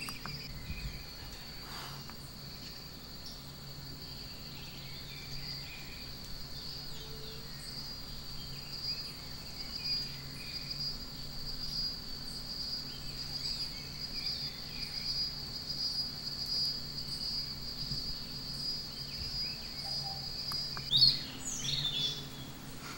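An insect's steady, high-pitched trill that stops about 21 seconds in, with faint scattered bird chirps. Near the end a bird gives two or three loud, quick calls that sweep up and down in pitch.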